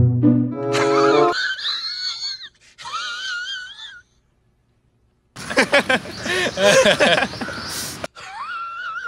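Comedy sound effects: a brass music sting ends, then high, wavering wailing sounds. About halfway in comes a burst of wheezing laughter, and the wavering wail returns near the end.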